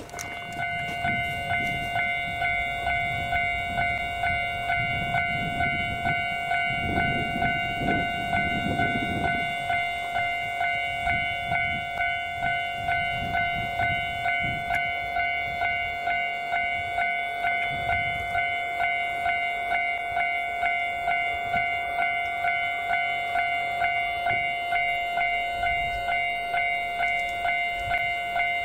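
Railway level crossing warning bell ringing steadily at about two rings a second, with a low rumble swelling and fading during the first ten seconds.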